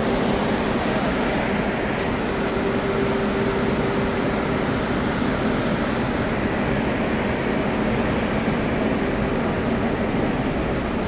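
Steady drone of ship's machinery, with a faint low hum in it, filling an empty steel cargo hold.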